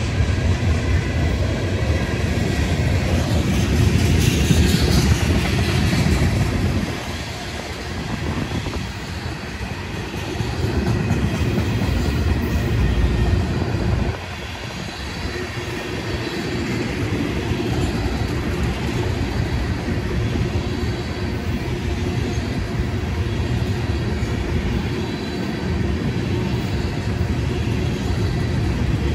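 Freight train of tank cars rolling past: steady rumble of steel wheels on the rails, dropping abruptly in loudness about halfway through.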